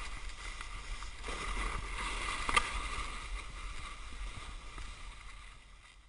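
Snowboard sliding and carving over snow with a steady rushing hiss, and wind rumbling on the microphone. A sharp knock comes about two and a half seconds in, and the sound fades away near the end.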